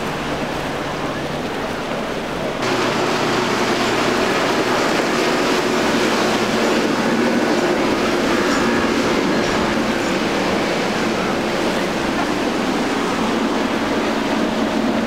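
Single outboard motors on small center-console boats running at speed through rough water: a steady engine hum under the rush of spray and wake. About two and a half seconds in the sound jumps louder, and from there it is a Mako running on a single Mercury outboard.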